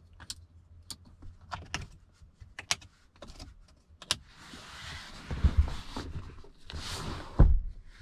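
Small plastic clicks, about ten sharp ticks over the first four seconds, as the rear-seat air vents and the controls under them in a Kia Stinger's back console are worked by hand. Rustling and two dull thumps follow, the louder one near the end.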